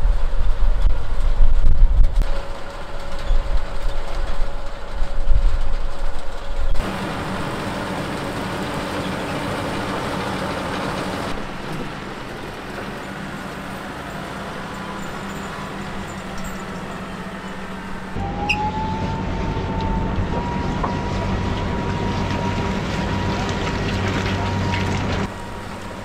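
John Deere 6130R tractor on rubber tracks pulling an AVR Spirit 5200 potato harvester: engine and harvester machinery running, with the rumble and clatter of the tracks. A loud, uneven low rumble gives way after about seven seconds to a steady machine drone. A high whine comes in about two-thirds of the way through and holds.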